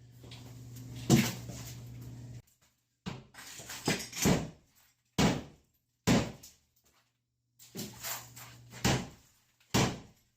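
Demolition hammer strikes, about ten sharp knocks at irregular intervals, each ringing briefly. A steady low hum under the first couple of seconds cuts off suddenly.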